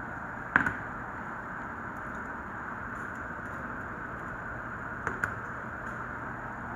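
A steady hiss runs throughout, with small sharp clicks of a hand tool on a hard surface about half a second in and twice in quick succession about five seconds in.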